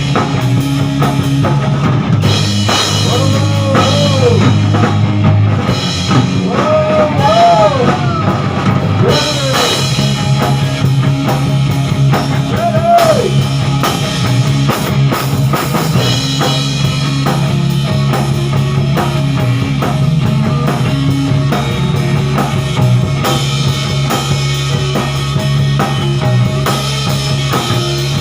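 Rock band playing an instrumental break: drum kit, bass and electric guitar, loud and steady, with a few rising-and-falling bent notes over it in the first half.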